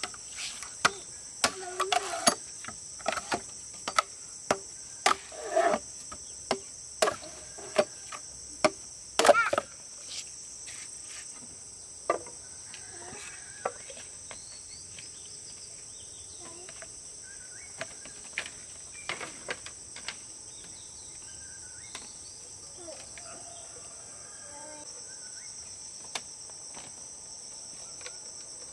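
A steady insect chorus, crickets or cicadas trilling high, under a run of sharp knocks at about two a second for the first ten seconds, thinning to scattered single knocks after that.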